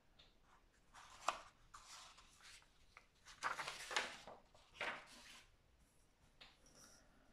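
Paper pages of a stapled exam booklet rustling as they are flipped over and smoothed down: a run of rustles, loudest about three and a half to four seconds in, with a sharp tap about a second in.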